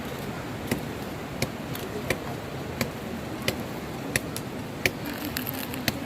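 Sharp, steady taps repeating about three times every two seconds over a background hiss, from roti being made by hand.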